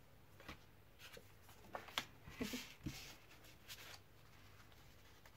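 Small card-stock cards being handled and stacked by hand: faint paper rustles and a scattering of light taps and slides.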